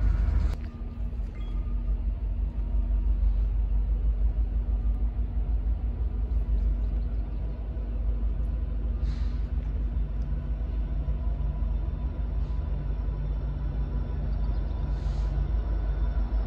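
Low, steady rumble of an approaching diesel freight locomotive, with its engine drone growing stronger in the second half.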